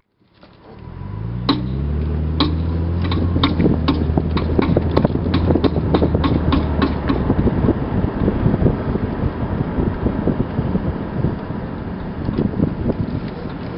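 2001 Lexus IS300 with its inline-six engine pulling away, the engine note rising and then holding steady. A sharp clicking from the left rear comes faster and faster, then thins out into the road noise about seven seconds in. The owner does not know the cause of the clicking.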